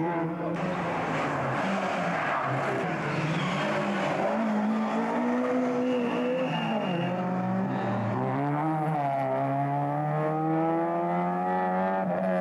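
Rally car engines at hard throttle through a tarmac junction, the revs rising and falling with gear changes, then climbing steadily as a car accelerates away. A short tyre squeal around six seconds in.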